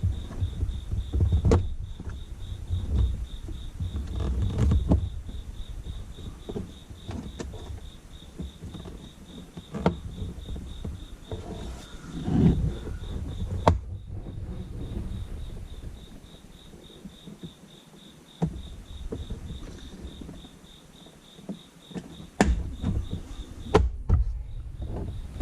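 Plastic interior trim panels being handled and pressed back into place in a car, with rustling, bumps and several sharp clicks as the clips seat. A faint, rapidly pulsing high tone runs underneath.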